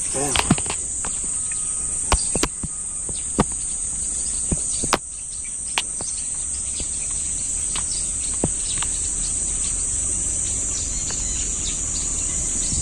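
Steady, high-pitched drone of insects, with a few faint scattered clicks.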